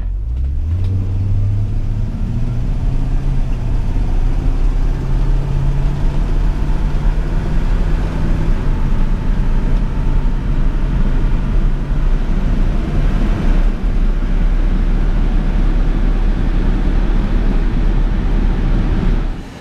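1965 Ford Fairlane's 289 V8 heard from inside the cabin on the road. It rises in pitch over the first couple of seconds as the car speeds up, then holds a steady cruise under road and wind noise.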